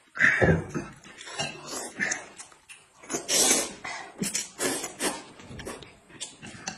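A man slurping mouthfuls of noodles and sipping from a bowl, a string of short wet slurps and chewing sounds, the longest slurp about three seconds in.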